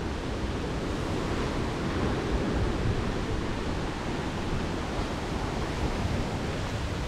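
Sea surf washing against the shore, a steady continuous noise.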